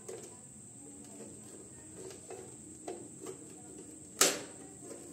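Small clicks and taps of fingers handling a white strip on the sealing bar of a hand-press heat sealer, with one sharp, much louder click about four seconds in.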